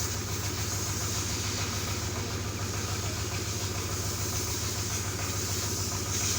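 A motor or engine running steadily with an even low hum.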